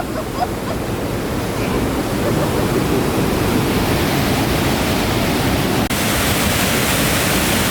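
A waterfall's falling water rushing loudly and steadily, close by. About six seconds in, the rush drops out for an instant and comes back brighter.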